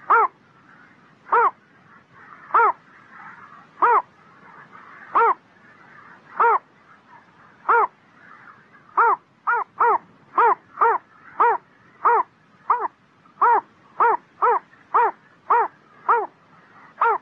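A heron calling: a short, harsh note repeated over and over. The calls come about one every second and a half at first, then quicken to about two a second from about halfway through.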